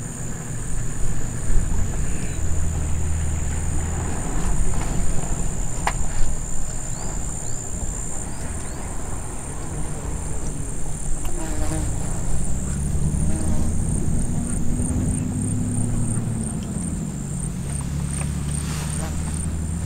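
Insects buzz steadily at a high pitch, the buzz turning into an even pulsing in the second half. Under it runs the low rumble of a vehicle engine, which swells and fades again around the middle, with a few faint chirps early on.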